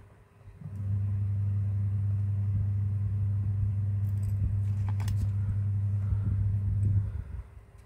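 A steady low hum, like a motor running, starts suddenly about a second in and cuts off about a second before the end, with faint clicks of small parts being handled.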